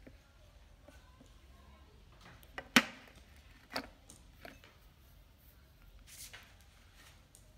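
A glass lid is lifted off a glass sugar bowl and set down on a tray: one sharp glass clink a little under three seconds in, then two lighter knocks about a second and a second and a half later. About six seconds in, a spoon dug into brown sugar gives a short gritty scrape.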